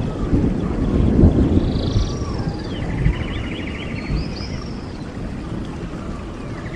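Birds chirping, with quick trills and rising and falling whistles, over a steady low rumble that slowly eases and then cuts off abruptly at the end.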